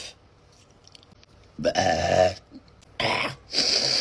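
A woman's deep, drawn-out burp about one and a half seconds in, followed near the end by two short coughs.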